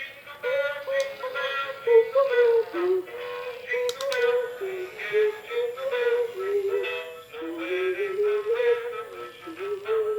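A tinny, electronic-sounding singing voice playing a melody through the small speaker of a Christmas walking penguin toy.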